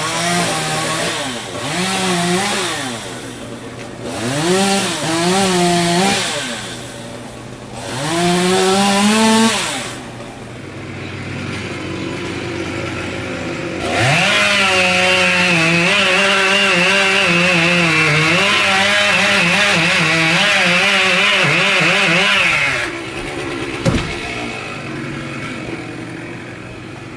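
Chainsaw revved in three short bursts, idling briefly, then held at full throttle for about nine seconds, as when cutting into wood, before dropping back to idle. A single sharp knock comes shortly after.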